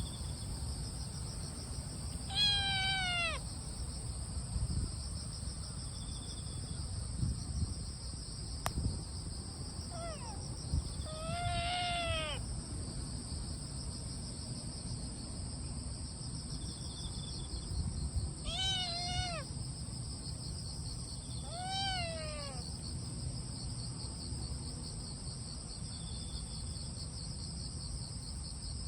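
A cat meows about five times at irregular intervals. Each call is a short, pitched, rising-and-falling meow. Insects chirp steadily and high-pitched throughout.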